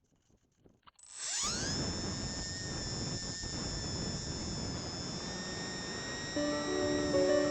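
Brushless electric motor and propeller of a small RC model plane throttling up about a second in: a high whine that rises in pitch, then holds steady with a rushing noise underneath. Guitar music comes in near the end.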